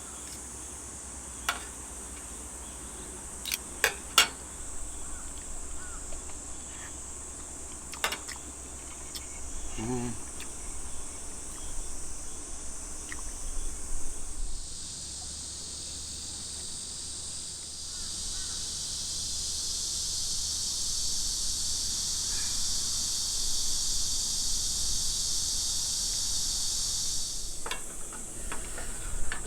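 A steady high insect chorus, with a much louder, fuller insect drone setting in about halfway and cutting off abruptly near the end. A few sharp clinks of cutlery on a plate come in the first half.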